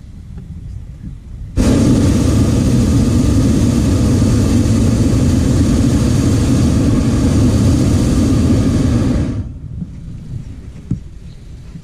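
Hot air balloon's propane burner firing in one loud blast of about eight seconds, starting abruptly a second and a half in and shutting off near the end.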